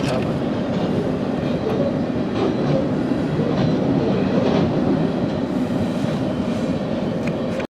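A steady low rumble with a few faint clicks, cutting off suddenly near the end.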